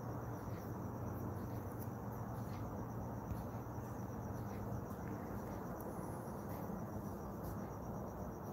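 Crickets chirping in a steady high trill over a low, even hum.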